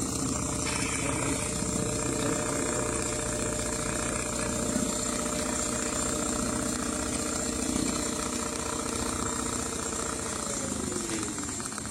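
Automatic CNC sewing machine stitching at speed, its motor holding a steady pitch with a fast, even needle pulse, then slowing down near the end.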